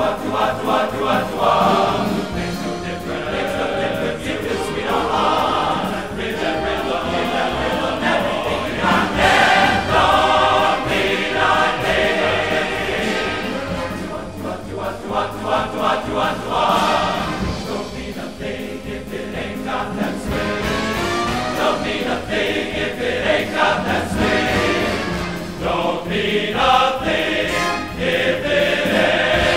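Choir music: a choir singing in phrases of held notes.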